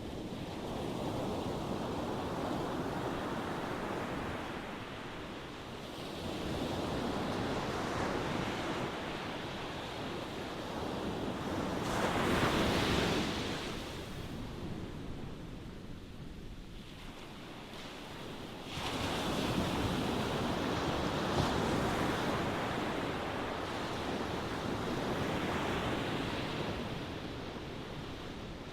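Ocean waves breaking and washing in: a steady rush that swells and ebbs every few seconds. The biggest wave comes about twelve seconds in, and another surges in at about nineteen seconds.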